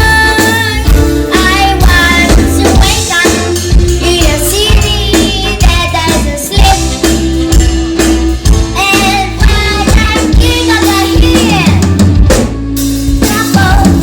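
A female voice singing a pop song over music with a drum kit and bass.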